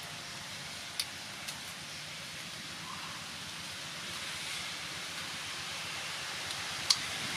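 Steady outdoor background hiss, with two sharp clicks, one about a second in and a louder one near the end.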